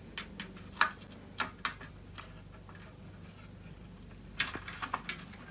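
Light clicks and taps of hands handling and pressing the metal front frame of an LED floodlight, scattered at first, then a quiet stretch and a short cluster of clicks near the end.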